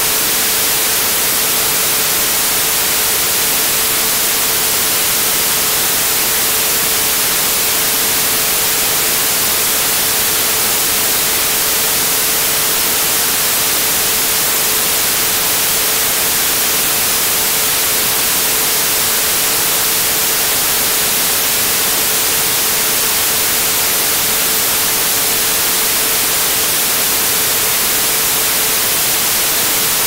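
Static hiss from a 1980s analogue television tuned with no antenna: a loud, steady hiss, brightest in the highs, with a faint steady tone underneath.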